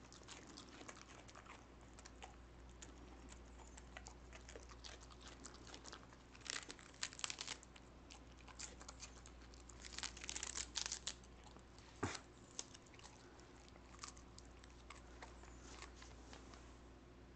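A Cardigan Welsh corgi faintly chewing and tearing at a lettuce leaf, crisp crunching that comes in clusters about six and a half seconds in and again around ten seconds in, with one sharp snap near twelve seconds.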